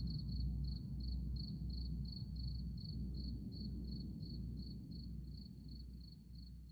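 Crickets chirping in a steady rhythm, about three chirps a second, over low, regularly pulsing drumming. The whole mix fades down steadily.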